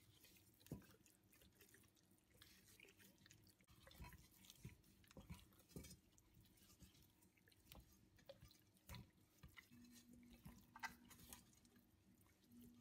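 Faint wet squelches and small soft taps of hands rubbing salt into the skin of a raw whole chicken in a metal bowl.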